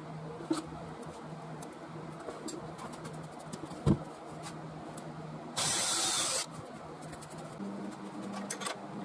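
A heavy wooden bowl blank handled on a workbench: light clicks and scrapes, and one heavy thump about four seconds in as the blank is set down. A steady low hum runs under it, and a short hiss lasting about a second follows shortly after the thump.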